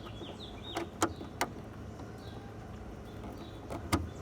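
Several sharp clicks and knocks from cables, connectors and plastic parts being handled, two near the start and two near the end, over a steady low hum. Small birds chirp faintly in the background.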